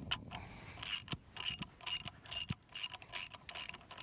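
Hand ratchet wrench worked in quick strokes: short bursts of metallic ratcheting clicks, two or three a second, with a few dull knocks from the metal parts being turned.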